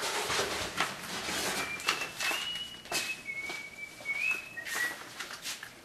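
A person whistling a few held notes of a tune that step up and down in pitch, over scattered light knocks of boxes being handled.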